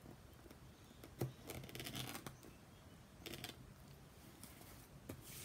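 A knife scraping and picking at the packing tape on a cardboard mailing box: faint, scattered scratches and ticks, without cutting through.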